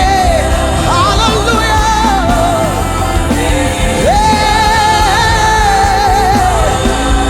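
Gospel song with a lead singer holding long "hallelujah" notes with vibrato over a full band with heavy bass.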